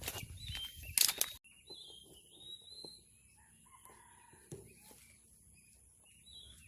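Rustling and a few clicks of handling in the first second or so. After a sudden break, birds call in thin, wavering high notes over a quiet background.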